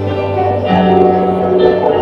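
Instrumental worship music: held chords over a steady low bass note, changing to a new chord a little under a second in.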